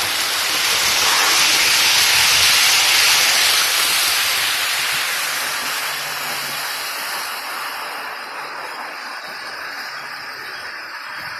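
Model train rolling along the layout track: a steady rushing hiss that swells about two seconds in, then slowly fades as it moves away.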